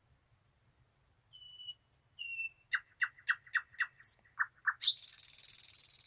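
Thrush nightingale singing one song phrase: two pure whistles, then a fast series of about nine sharp, loud notes, ending in a dry rattle about a second long that stops suddenly.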